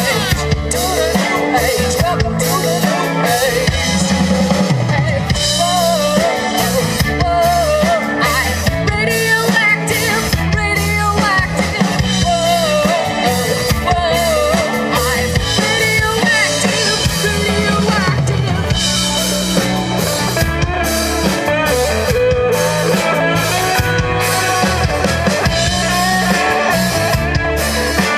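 Live rock band playing loudly: a drum kit keeping a steady beat with bass and electric guitar, and a wavering lead melody over the top.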